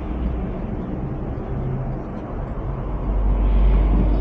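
Steady low rumble of motor-vehicle engines and traffic noise, growing louder about three seconds in.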